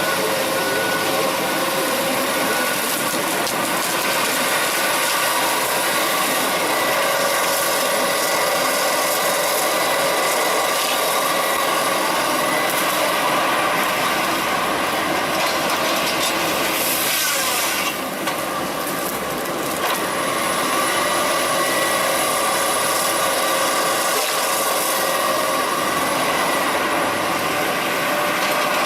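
Heavy wood-processing machinery running steadily, a mechanical drone with wood being worked. The sound dips briefly about eighteen seconds in, followed by a click.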